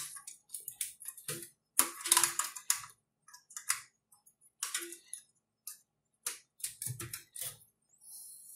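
Cables and plastic connectors being handled inside an open desktop computer case: irregular clicks, taps and short rustles.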